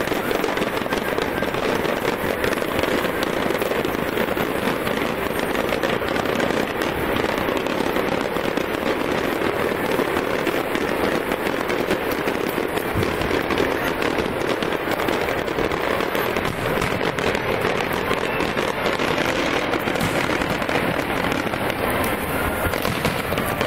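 Fireworks display: a dense, steady run of crackling and popping from aerial shells, with no single bang standing out.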